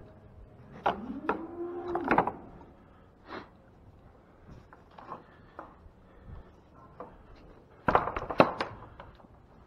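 Wooden knocks and clatters from cattle pen boards and gates. They are scattered through the first few seconds and come as a louder burst of several knocks near the end. About a second in, a short low tone rises and falls.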